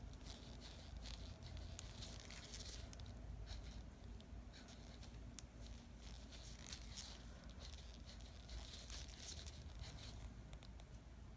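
Faint, light scratchy rustling of a nail brush pressing and stroking acrylic over a sculptured nail on its nail form, handled in gloved hands, with a low steady room hum underneath.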